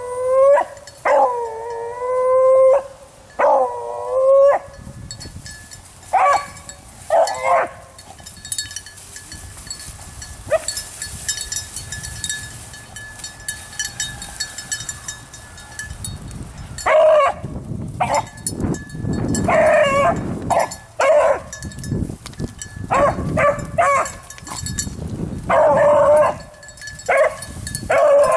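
A beagle bays on a rabbit's trail. There are three long drawn-out bawls in the first few seconds, then after a lull a run of shorter, choppier barks.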